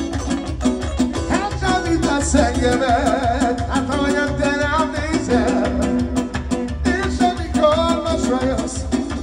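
Live Romani party music from a keyboard-and-guitar band: a wavering, ornamented lead melody over a fast, even beat.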